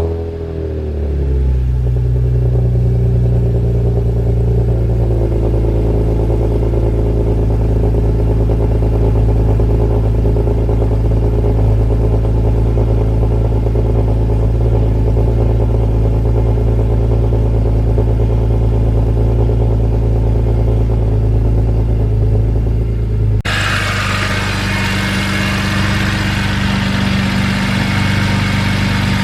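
BMW E46 M3's S54 straight-six, on a catless exhaust with newly fitted Yonaka section 1 pipes and an unresonated X-pipe, just after starting up: it flares and settles within about two seconds into a steady idle. About 23 seconds in, the sound changes suddenly and turns brighter and hissier while the idle carries on.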